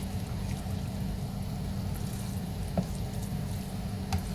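Spoon stirring thick chili mac in a plastic pressure-cooker pot: soft wet stirring with a couple of light clicks, over a steady low hum.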